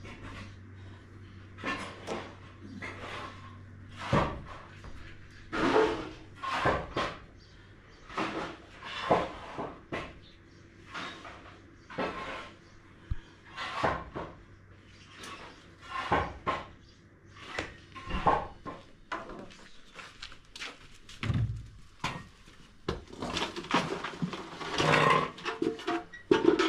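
Irregular knocks, clatter and scrapes, about one or two a second, with a busier, louder run near the end.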